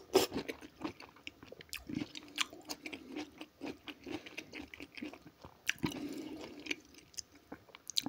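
Close-up chewing of a crunchy pickled cucumber, with many short, irregular crunches and wet mouth sounds.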